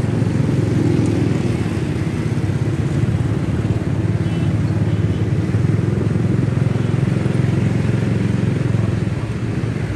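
Motorcycle engine running steadily at low speed, a constant low drone with no marked revving.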